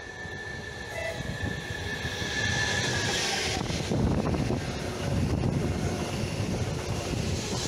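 Leo Express Stadler FLIRT electric multiple unit running through the station at speed, its noise growing as it approaches. A high steady whine stops about three and a half seconds in. After that comes a dense rumble of wheels on rail as the cars pass close by.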